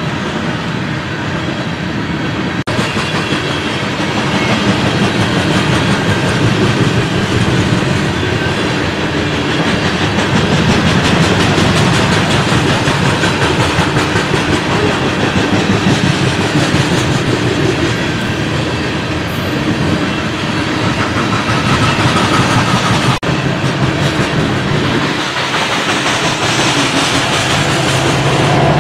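Coal train's loaded or empty gondola cars rolling past: a steady rumble of steel wheels on the rails with clickety-clack over the rail joints.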